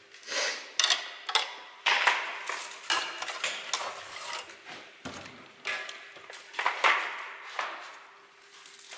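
Irregular clinking and clattering of metal tools and parts being handled during the disassembly of electronic equipment: a string of sharp knocks and rattles at uneven intervals.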